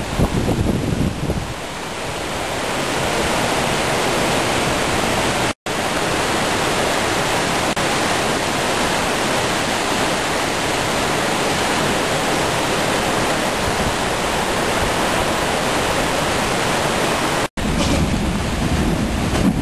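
Floodwater of a swollen river rushing by in a loud, even wash of noise. Wind buffets the microphone near the start and again near the end, and the sound cuts out for an instant twice, about five and a half seconds in and near the end, at edits.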